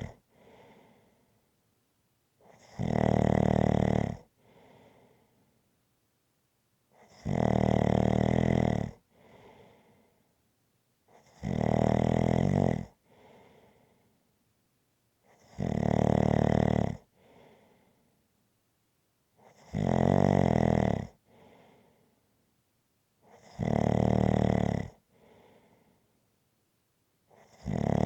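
A person snoring in a steady rhythm, one rattling snore on each breath in about every four seconds, each followed by a soft breath out.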